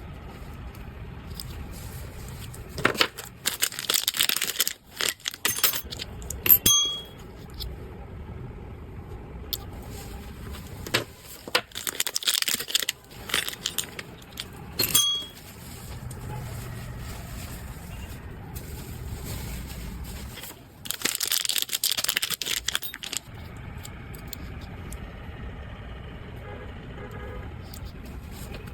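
Packaging and small items being handled during an unboxing: several spells of rustling and crinkling with sharp clicks and light clinks, separated by quieter stretches of low background hum.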